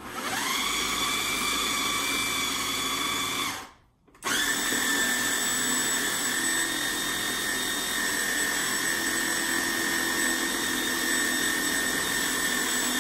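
Electric food processor chopping parsley, onions, garlic and spices into a thick mash. The motor whines up to speed and runs for about three and a half seconds, stops briefly, then starts again about four seconds in and runs steadily.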